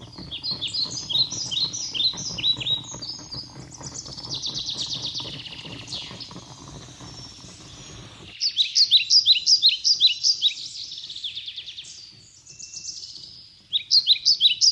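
A songbird singing in rapid phrases of short, falling chirps, repeated over and over. A low rumble sits underneath for the first eight seconds or so and then stops abruptly.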